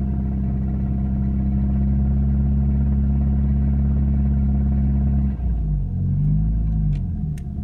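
Car engine running with a knock that the owner takes for most likely piston knock. About five seconds in the engine speed drops and wavers up and down before settling lower, with a couple of sharp clicks near the end.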